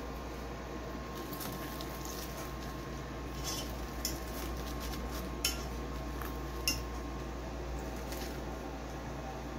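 Kitchen knife cutting through a crisp breaded pork cutlet on a plastic cutting board, the blade scraping and clicking against the board a few times in the middle, over a steady low hum.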